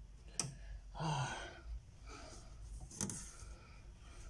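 A breathy sigh about a second in, set between two sharp little clicks from handling a picture frame, one just before it and one about two seconds later.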